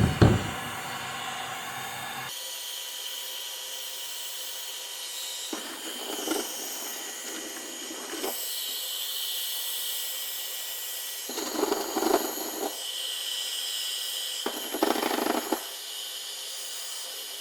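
Electric heat gun running, a steady blowing hiss with a high whine, growing fuller and louder three times for a second or two.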